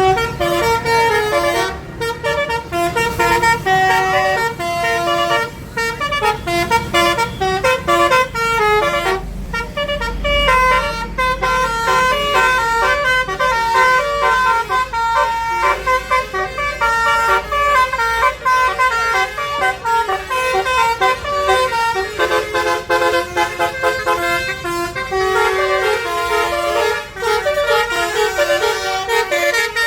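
Basuri telolet multi-tone bus horn playing a tune of short, stepped horn notes over and over. A low rumble comes in about ten seconds in.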